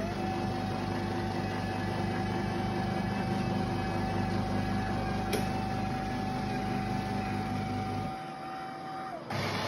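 Dr.Coffee Coffee Center superautomatic coffee machine running as it dispenses milk made from milk powder for a cappuccino. A steady motor hum and a constant whine play together, with a single click about five seconds in. The hum stops about eight seconds in and the whine a second later, then a louder, noisier whirring starts near the end.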